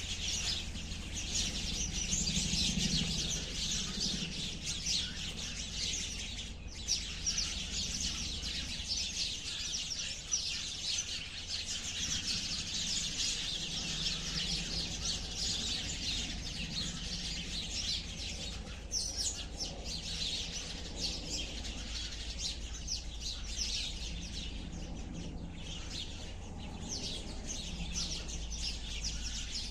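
Many sparrows chirping at once: a continuous chatter of short, overlapping chirps with no pause.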